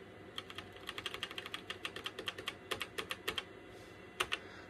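Keys being typed on a Toshiba T3200SX laptop keyboard: a quick run of key clicks for about three seconds, then two more near the end.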